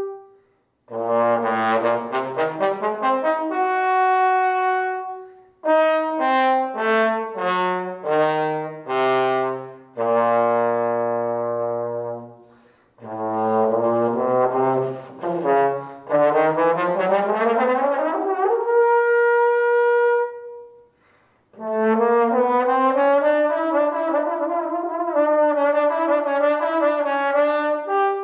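Unaccompanied solo tenor trombone playing phrases separated by short breaths for air: quick runs stepping down to low notes, a long rising slide glissando into a held note about two-thirds of the way in, and a wavering, rapidly moving passage near the end.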